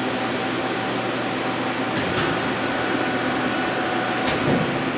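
Steady fan-like hum of a Hurco TM8i CNC lathe standing idle with its spindle stopped, with a faint click about four seconds in.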